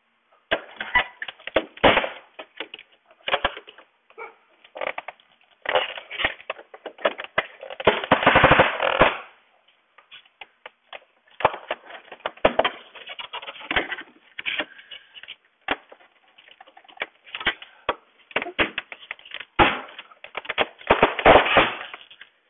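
A double-hung window sash knocking, rattling and scraping in its frame as it is tilted and pushed into the side tracks. The sound comes in irregular clusters of sharp clicks and knocks, with a long buzzing rattle about eight seconds in.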